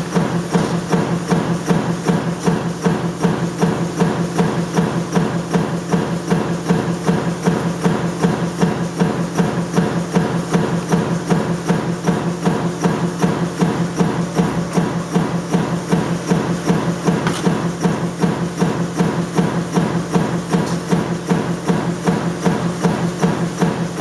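Sheet-metal stamping press running continuously, its die striking in a fast, even rhythm over a steady machine hum.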